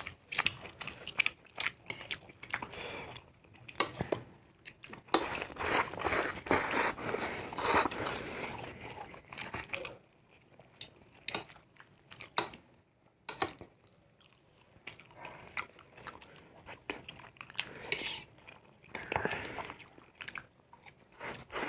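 People eating chow mein noodles, chewing and biting in uneven bursts, with scattered short clicks.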